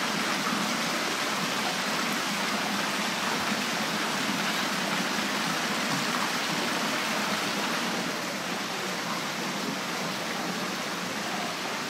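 Rows of thin arching fountain jets splashing into a long garden pool: a steady hiss and patter of falling water, a little softer after about eight seconds.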